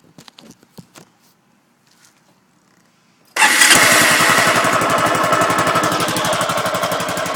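A few faint clicks, then about three and a half seconds in the Honda Big Ruckus scooter's single-cylinder engine starts and runs steadily with a fast, even beat. There is no metallic rattle, now that its loose muffler section is tied up tight.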